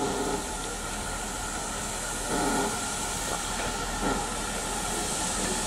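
GWR 1500 class pannier tank steam locomotive No. 1501 approaching with its train, steam hissing steadily. Two brief louder surges come about two and four seconds in.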